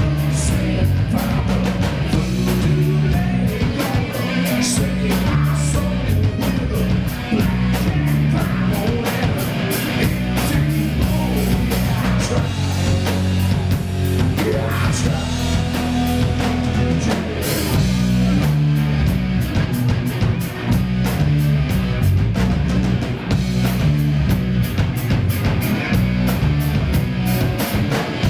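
Live Southern rock band playing: electric guitars through amplifiers, bass and a drum kit, with a man singing.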